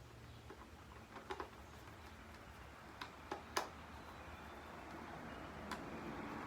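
A few irregular small clicks and knocks from handling the parts of an old alarm clock, the sharpest about three and a half seconds in, over a low steady hum that grows slightly louder toward the end.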